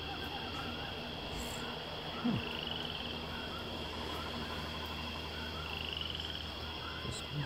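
A steady outdoor chorus of calling frogs and insects: a constant high trill with many short repeated chirps, and two pulsed trills about two and a half and six seconds in. A brief low thud about two seconds in.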